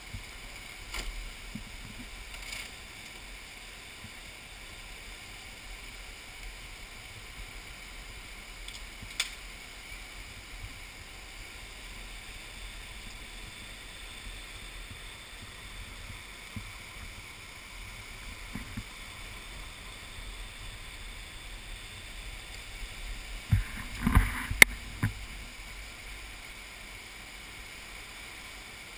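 Flash-flood water rushing steadily through a narrow rock gorge, the muddy flow carrying a mat of logs and branches. A few brief knocks sound near the end.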